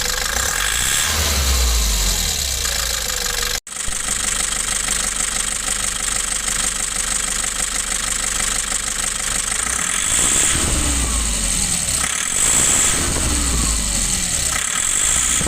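Nissan Urvan E25 diesel engine running with a knocking sound and a slight rise in level around 10 and 12 seconds in. The rough running and knock are put down to a defective replacement injection pump and its injection-timing fault.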